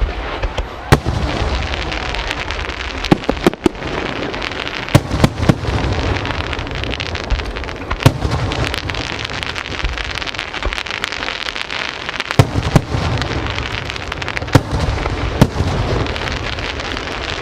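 Aerial fireworks display: a dense, continuous crackling with many sharp, loud bangs of shells bursting overhead, some in quick clusters.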